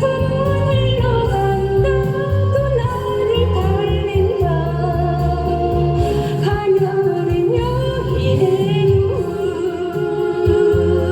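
A solo singer singing a Korean trot song over an instrumental backing track, holding long notes with vibrato above a steady bass line.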